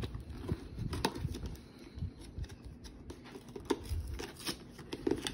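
A cardboard gift box handled and opened by hand: scattered taps, scrapes and rustles of the cardboard, uneven and irregular.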